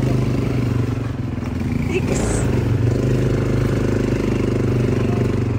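ATV (quad bike) engine running as it is ridden, a steady engine drone that shifts a little in pitch.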